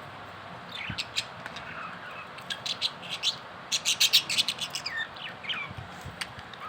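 Budgerigars chirping: a flurry of short, sharp chirps and quick sliding calls that starts about a second in, is densest near the middle, and thins out toward the end.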